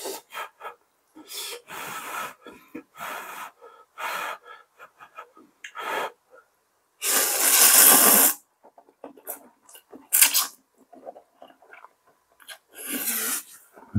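A person eating close to the microphone: irregular chewing and mouth noises with audible breaths, and one longer, louder hissing breath a little past halfway.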